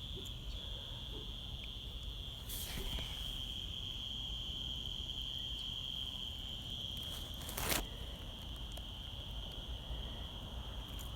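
A steady, high-pitched chorus of crickets, with a soft rustle about a quarter of the way in and a single sharp click about two-thirds of the way through.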